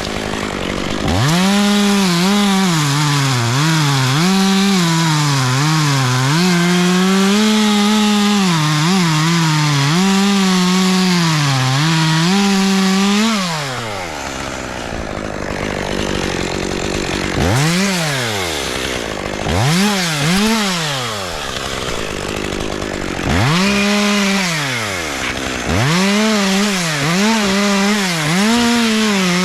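Two-stroke chainsaw cutting into dead oak at full throttle, its engine note dipping and recovering as the chain bogs in the wood. About 13 seconds in it drops to idle and is blipped twice, then goes back to full throttle and cutting from about 23 seconds in.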